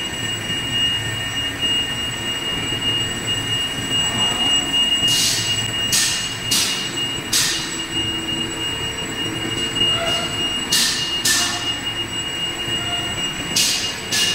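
Large lathe running, with a boring tool taking the final cut in the bore of a metal draw-mould pressure pad: a steady machine hum under a constant high-pitched whine, and short hissing bursts in clusters near the middle and near the end.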